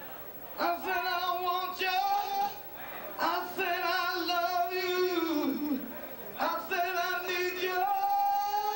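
Male singer vocalising without words into a hand microphone: three wavering phrases with vibrato, each sliding down at its end, then a long held note that slides slowly upward near the end, with no band audible beneath.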